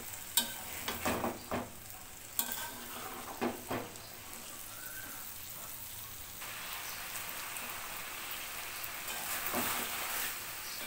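A spatula stirs pieces of snakehead fish and hyacinth bean seeds in a metal pan, scraping and clacking several times in the first few seconds, over a steady sizzle of the masala frying. The sizzle gets louder a little past halfway.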